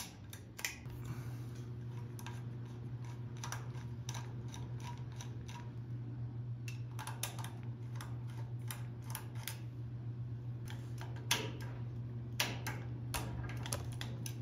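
Small screwdriver backing out the screws that hold a Honeywell zone valve's actuator head to the valve body: a run of irregular light metallic clicks and ticks, a few louder ones in the second half, over a steady low hum.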